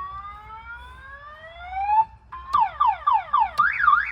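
Wolo Animal House Model 345 electronic horn sounding its siren and alarm tones through the speaker: a slow rising wail for about two seconds, then a run of quick falling whoops, then a fast up-and-down warble near the end.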